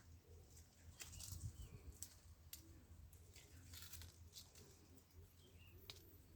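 Near silence, with faint scattered clicks and light rustling.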